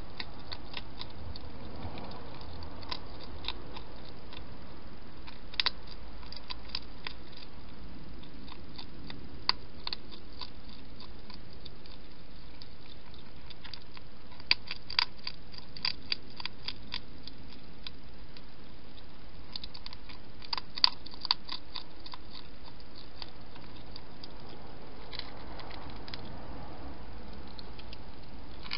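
Hedgehog eating, with scattered runs of sharp crunches as it chews dry food, over a steady hiss.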